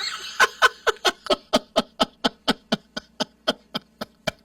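A person laughing in a long run of short, even pulses, about five a second.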